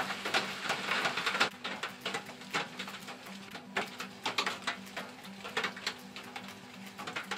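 Rain falling and dripping, with many irregular drops tapping close by, busiest in the first second and a half. A faint low hum comes and goes underneath.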